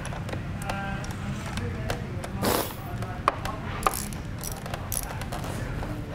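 Ratchet wrench working the upper triple clamp bolt of a motorcycle fork, giving a few sharp metallic clicks and short pings over a steady low background rumble.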